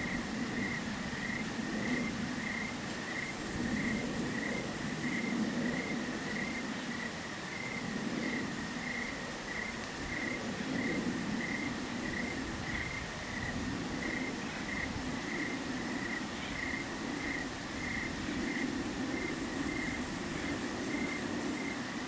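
A cricket chirping steadily at about one and a half chirps a second. Two short, high-pitched trills come about 3 seconds in and near the end, over a low, swelling rush of breeze.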